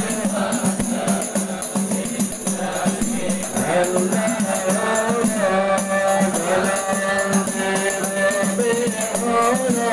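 A group of men's voices singing an Arabic devotional sholawat together, led by one voice on a microphone, over a steady beat of hand-struck frame drums (rebana).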